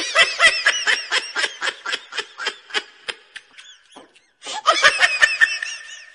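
High-pitched laughter sound effect: quick giggling bursts, about five a second, breaking off for a second past the middle and starting again near the end.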